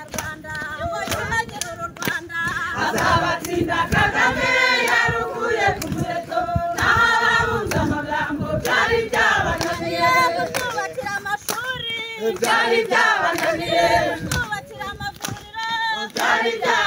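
A large crowd, mostly women's voices, singing together unaccompanied, with handclaps.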